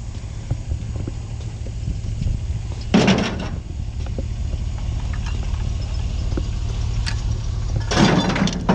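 A vehicle engine running with a steady low rumble. Two short bursts of noise come about three seconds in and again near the end.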